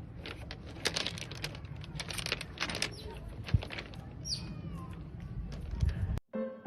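Rustling and short clicks over a low rumble, with a brief falling bird chirp about four seconds in; the sound cuts off abruptly near the end.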